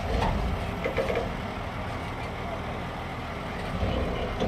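Engine of a crane truck running steadily to power its truck-mounted crane as it hoists poles off the bed. Faint voices are heard in the background during the first second.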